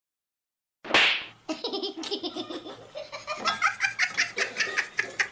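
A sudden loud burst of noise about a second in, then laughter in quick rhythmic bursts, rising higher in pitch after about three seconds.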